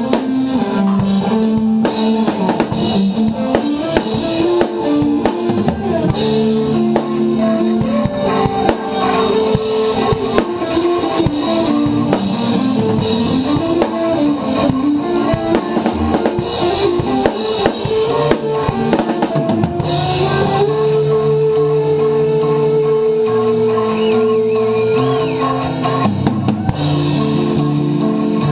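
Drum kit played along to a progressive metal track: busy kick drum, snare and rimshot hits over guitar and bass. About 20 seconds in, a long guitar note is held over the beat.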